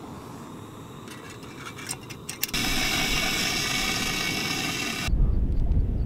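Wind on the microphone. After a few faint clicks, a loud even hiss cuts in suddenly about two and a half seconds in, and about five seconds in it gives way abruptly to heavy low buffeting.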